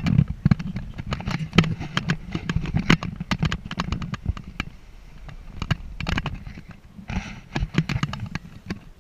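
Handling noise from a hand-held action camera in its housing: irregular clicks and knocks over a low rumble, as the camera swings about in the open air.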